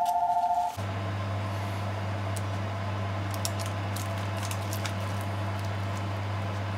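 A short pulsing tone, then, about a second in, a steady low machine hum starts abruptly. Over the hum come scattered light clicks of a bamboo sushi rolling mat's slats as a thin maki roll is pressed and shaped in it.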